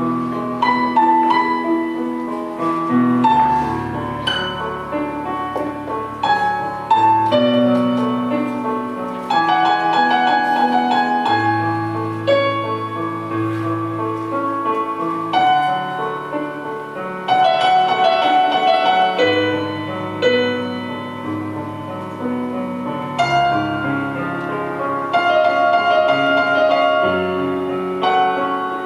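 Instrumental music: a piano playing a melody over held low notes.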